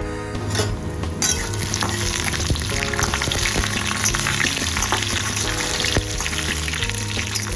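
Papad frying in hot oil: a loud, steady sizzle that jumps up about a second in.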